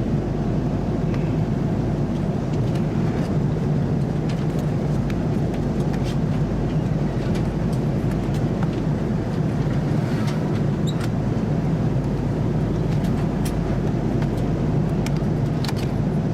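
Steady cabin noise of an Airbus A330-300 in cruise: an even, low rush of engine and airflow noise, with a few faint light clicks over it.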